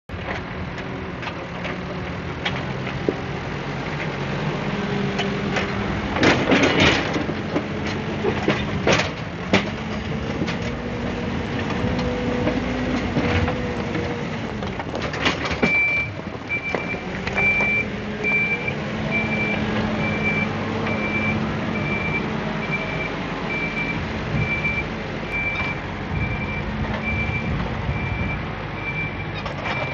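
A Hyundai construction machine's engine runs under working load, its pitch rising and falling, with sharp metal clanks about a third and half of the way in. From about halfway a high beeping alarm repeats steadily.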